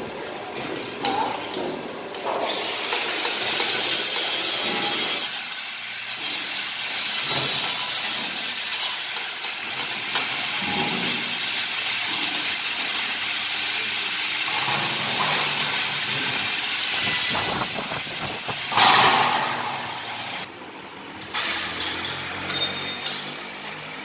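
Steady hiss of shop machinery at a hydraulic press brake, with a few sharp clanks of stainless steel sheet being handled near the end.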